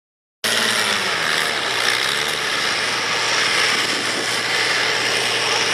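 Diesel farm stock pulling tractor's engine working hard under load, a steady sound that starts abruptly about half a second in.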